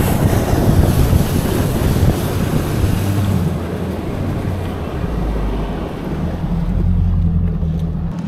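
A boat's outboard motor running steadily under way at speed, with wind rushing over the microphone and water rushing past the hull. The wind noise eases about three seconds in.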